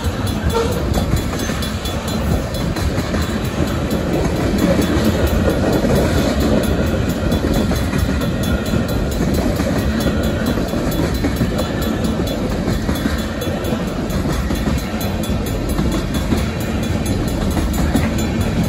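Freight train's tank cars and covered hoppers rolling past: steel wheels on the rails make a steady, loud rumble with a clickety-clack.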